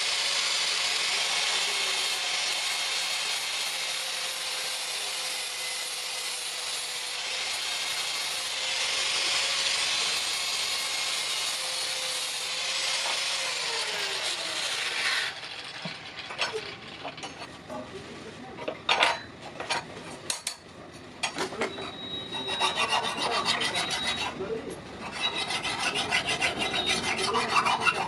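A power grinder runs steadily against metal with a held whine, then spins down with a falling pitch about halfway through. After scattered knocks and scrapes, a hand file rasps over the metal in quick repeated strokes near the end.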